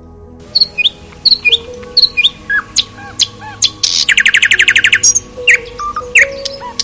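A bird chirping: a series of short, sharp calls, with a fast trill of about a dozen notes a second around the middle, over soft background music.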